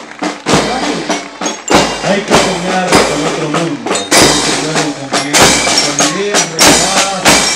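School marching band playing a march: drums strike a steady beat, about one heavy hit every 0.6 seconds, under a brass melody.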